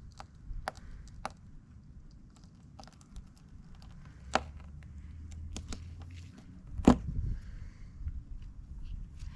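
Scattered light clicks and taps of hands and tools at work, with two sharper knocks about four and seven seconds in.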